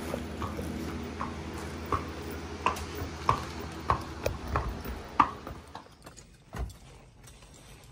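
A Missouri Fox Trotter gelding's hooves clip-clopping on a concrete barn aisle under a rider, a sharp strike about every half-second to second, over a steady low hum. The hoofbeats stop about six seconds in and the sound drops to a quieter background.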